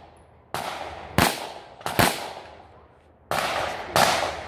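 A string of 9mm shots from a Beretta 92 Inox pistol, irregularly spaced about half a second to a second apart, each sharp report trailing off in a short echo.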